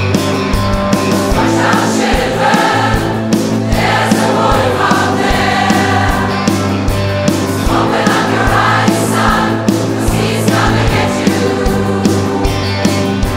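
A large crowd of amateur singers sings together as a choir, backed by a live band of keyboard, drums and electric guitar playing a steady beat.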